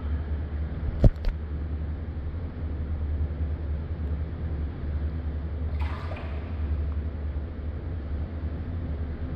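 Indoor pool with a steady low hum under gentle water movement as a floating body is moved through the water. There are two sharp clicks about a second in and a brief water swish a little past the middle.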